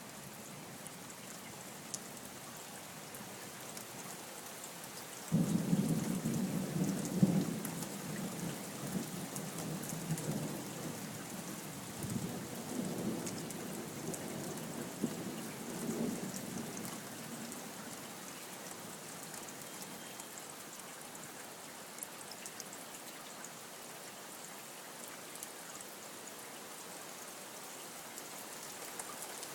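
Steady rain with a roll of thunder that starts suddenly about five seconds in and rumbles on in several surges for about ten seconds before fading back to the rain.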